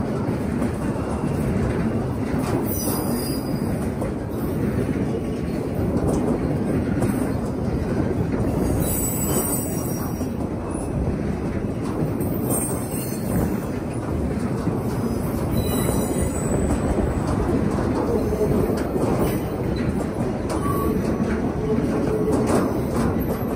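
Double-stack intermodal freight train's cars rolling past at steady speed, a continuous rumble of steel wheels on rail. Brief high squeals come through several times.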